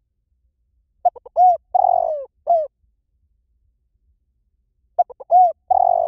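Spotted dove calling: two matching phrases about four seconds apart, each a quick run of short notes followed by a few longer, falling coos. A call of the kind played to lure spotted doves in.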